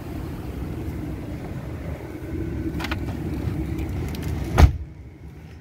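Chevrolet Avalanche's V8 engine idling, with outdoor noise, then a single loud thump about four and a half seconds in as the driver's door is shut.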